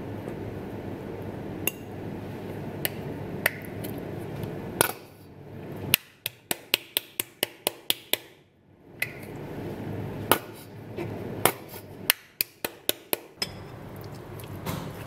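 Metal spoon and fork clinking and tapping against ceramic bowls while mixing food, sharp clinks scattered at first, then coming in quick runs of about four a second, over a steady low hiss.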